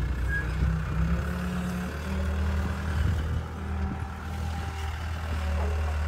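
Diesel engine of a Caterpillar compact track loader running steadily as the machine pushes dirt and debris with its bucket; the engine note steps up a little about a second and a half in.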